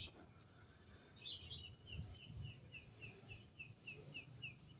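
A bird calling faintly in a quick series of about a dozen short, falling chirps, three or four a second. A low rumble runs underneath.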